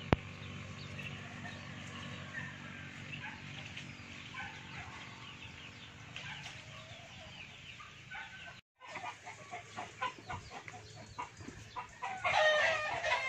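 Domestic chickens clucking softly, with a louder chicken call about twelve seconds in. Scattered light knocks and clicks come in the second half.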